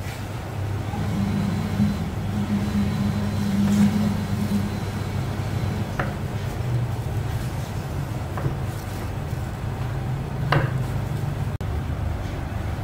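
A large kitchen knife cuts through raw fat and knocks sharply on the cutting board three times, a couple of seconds apart, over a steady low hum.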